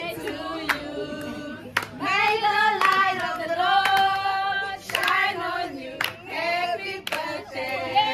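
A small group singing a birthday song together in chorus, with hand claps.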